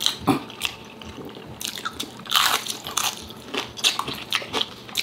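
Close-miked eating: sharp biting and crunching with chewing, the crisp crunches from fried dried fish (danggit), with one louder crunch about two and a half seconds in.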